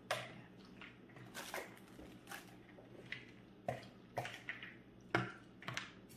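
A spoon stirring fruit salad in a cream dressing with crushed cashews in a glass mixing bowl: wet squelching, with irregular clicks and scrapes of the spoon against the glass. The loudest knock comes about five seconds in.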